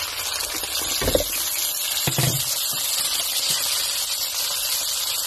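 Soy sauce and vinegar marinade sizzling in hot frying oil as it is added to the pan of browned pork, a steady hiss, with two dull knocks about one and two seconds in.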